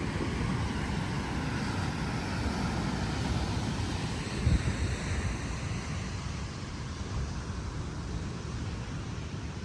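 Ocean surf washing on the beach, with wind buffeting the microphone in a low rumble and a brief gust about four and a half seconds in.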